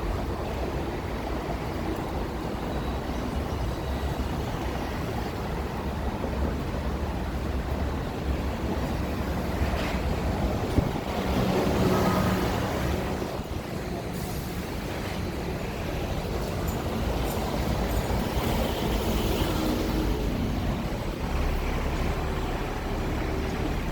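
Hong Kong electric tram running along its track, a steady rumble of wheels and motor that swells briefly about halfway through.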